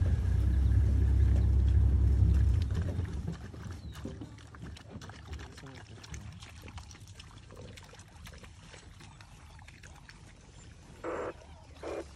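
African wild dogs lapping water at a muddy waterhole, many small wet clicks, after a low rumble that fades out about three seconds in. Two short calls near the end.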